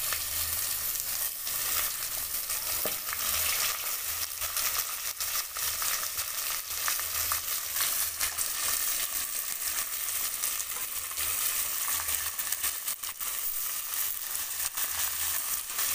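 Marinated chicken pieces sizzling and crackling as they fry in hot oil in a metal pot with onions and herbs, a steady hiss with many small pops.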